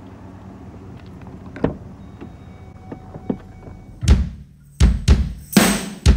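Low steady car hum with a car door thunk and a few faint clicks and short beeps; about four seconds in, a punk rock band crashes in with loud, repeated full-band drum and guitar hits.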